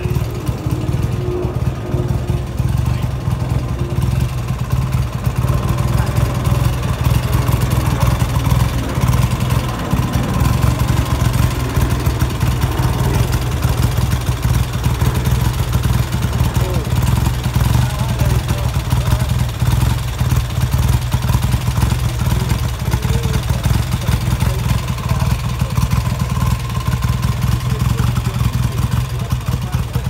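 BSA Gold Star single-cylinder four-stroke motorcycle engine running steadily at idle, with the even pulsing beat of its exhaust.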